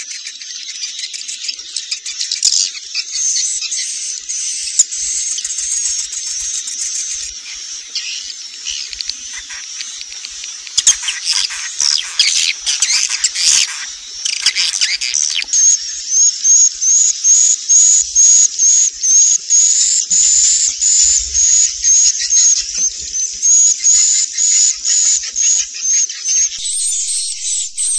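Swiftlets twittering: dense high chirps that grow busier and louder near the middle, then a short chirp repeating evenly about twice a second.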